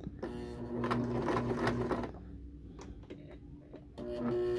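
Electric domestic sewing machine stitching through coiled cotton rope in two runs. It runs for about two seconds, stops, then starts again near the end.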